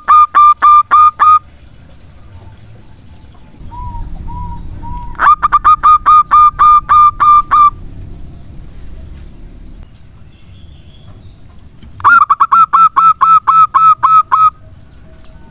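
Zebra dove (perkutut) song: three bursts of rapid, evenly spaced staccato cooing notes, about five a second, each burst about two and a half seconds long. The first is already under way at the start, the second comes about five seconds in, and the third about twelve seconds in.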